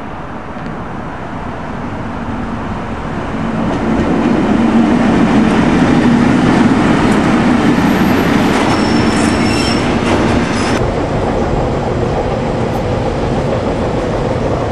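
Class 60 diesel locomotive's eight-cylinder Mirrlees engine working as it approaches and passes close at the head of a train of coal hopper wagons, growing louder over the first four seconds. Brief high wheel squeal between about eight and ten seconds in.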